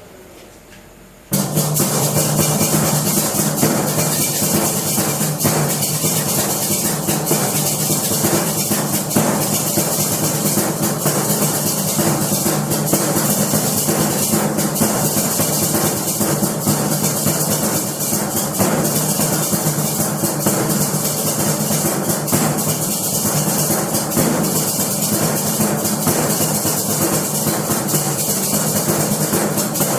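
Live acoustic percussion music that starts abruptly about a second in: a dense, steady shaker-like rattle over drums and a low held tone.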